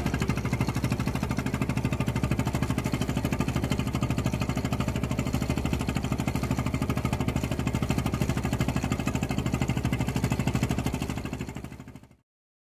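A small engine running steadily with a rapid, even pulsing beat, fading out near the end.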